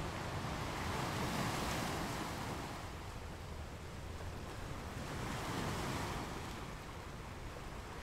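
Underwater ambience recorded through a dive camera housing: a steady hiss and low rumble that swells twice, about four seconds apart.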